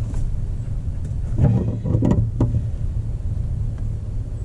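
A steady low mechanical hum, like an engine running, with a few short knocks about one and a half to two and a half seconds in.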